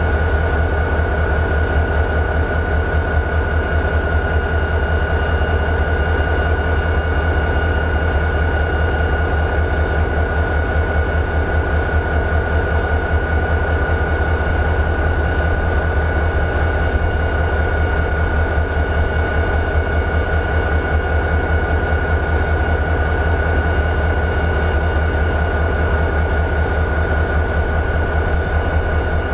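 EMD 645 diesel engine of a CSX GP40-2 locomotive idling: a steady, deep, fast-pulsing throb with a constant high whine above it.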